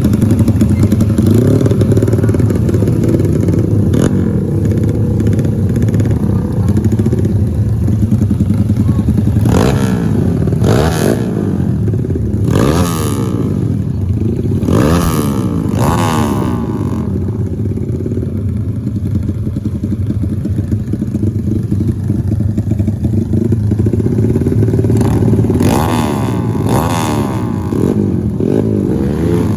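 Trail motorcycle engine running and being ridden, its pitch rising and falling with the throttle, with a cluster of brief louder bursts in the middle and again near the end.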